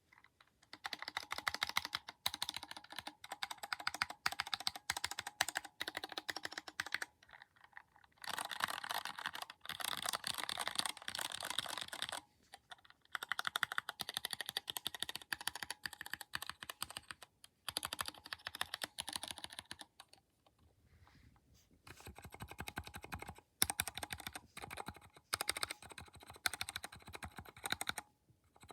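A keyboard fitted with new keycaps, typed on rapidly in bursts of quick key clicks with short pauses between runs.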